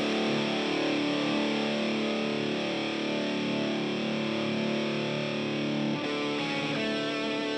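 Distorted electric guitar played live, holding sustained chords; about six seconds in, a picked single-note guitar line comes in over them.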